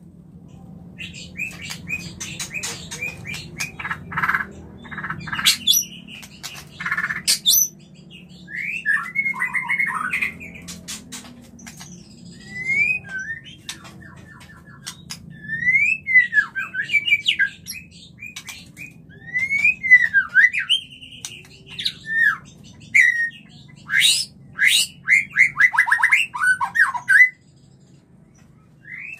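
Male white-rumped shama (murai batu) giving its breeding-mood mating calls: a string of varied phrases, harsh scratchy chatters and clicks, then sweeping downward whistles and a quick stuttering run, separated by short pauses, stopping about two seconds before the end.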